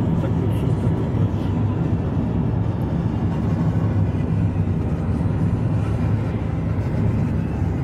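Car driving on the road, heard from inside the cabin: a steady low rumble of engine and tyre noise.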